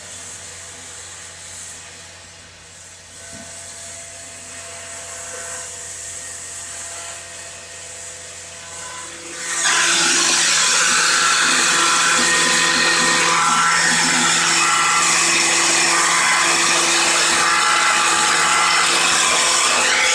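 High-speed power tool working: a quieter steady motor hum at first, then about halfway through a sudden loud, harsh cutting noise with a high whine that keeps on steadily.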